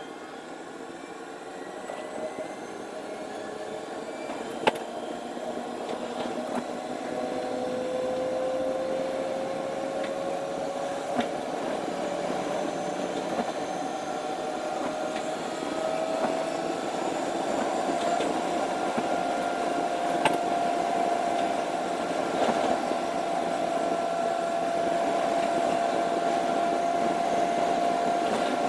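Electric train running, heard from the driver's cab: a steady rumble that grows louder as it picks up speed, with a whine that climbs in pitch for about ten seconds and then holds steady. A few sharp clicks sound through it.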